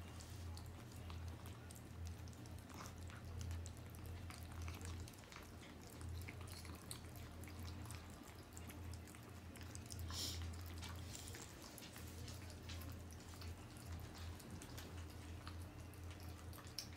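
Kittens eating wet cat food from plastic bowls: faint, scattered wet chewing and lip-smacking clicks over a steady low hum.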